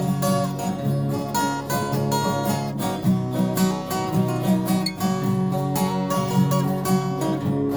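String band music: acoustic guitars strummed in a steady, even rhythm over a bass line.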